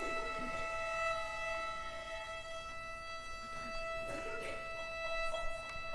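Violins holding a single long, steady high note (around the E above middle A).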